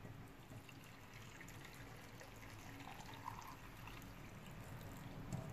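Hot pickling brine of water, vinegar, salt and sugar pouring from a pot into a glass jar packed with cucumbers: a faint, steady trickle that grows a little louder near the end.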